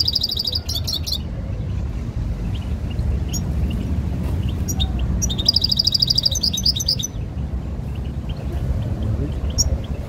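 Caged European goldfinch singing in two fast, twittering bursts, one at the start and a longer one about halfway through, with a few faint chirps between, over a steady low background hum.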